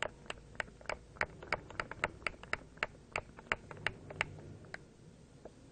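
High-pressure hand air pump being worked quickly to pressurise a fitting, a sharp click on each stroke, about three a second, stopping near the end.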